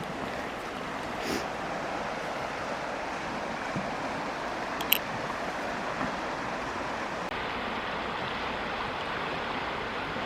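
Steady rushing of a flowing river, with one brief sharp sound about five seconds in.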